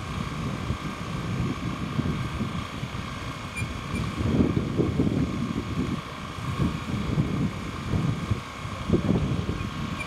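Corded electric drill running steadily as it bores into a timber beam, its motor giving a constant whine, with wind buffeting the microphone in gusts.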